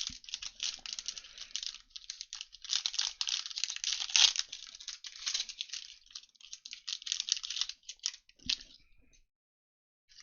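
Plastic wrapping on sports card packs crinkling and tearing as it is opened, in dense, irregular crackles; the sound cuts off abruptly about nine seconds in.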